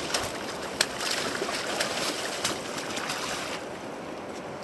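Splashing as a big Chinook salmon thrashes in a landing net in shallow river water, over the steady rush of the river. The splashing is strongest for the first three seconds or so, then eases off.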